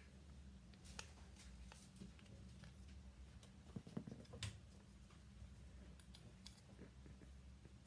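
Faint, scattered clicks and taps of small plastic model-kit parts being handled and pressed together, the sharpest about four seconds in, over a low steady hum.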